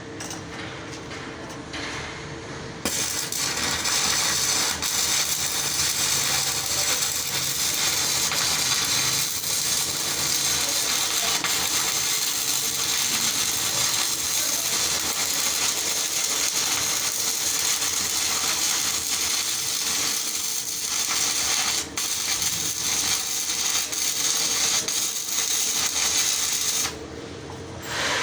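Stick (shielded metal arc) welding arc crackling steadily while laying a root pass on a steel pipe corner; it strikes about three seconds in and stops shortly before the end.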